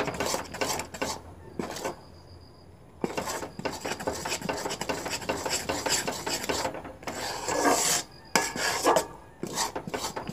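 Spoon scraping round a metal pan in quick strokes, stirring thick sugarcane jaggery syrup as it cooks down. There is a pause of about two seconds near the start and a louder scrape about three-quarters of the way through.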